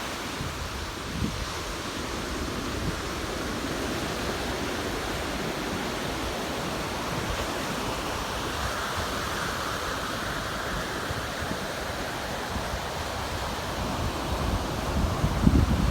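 Ocean surf breaking and washing steadily on a sandy beach, with wind gusting against the microphone, strongest near the end.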